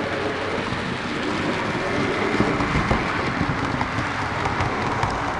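Model train, a steam locomotive hauling coaches, running along the layout's track: a continuous rumble of motor and wheels with light clicking over the rail joints, a little louder as it passes close by about halfway through.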